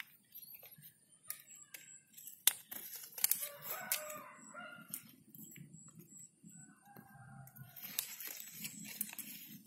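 Hands thinning a water apple tree's flower-bud clusters: leaves rustle and brush, and buds snap off with sharp clicks, the loudest about two and a half and three seconds in. A rooster crows in the background in the middle.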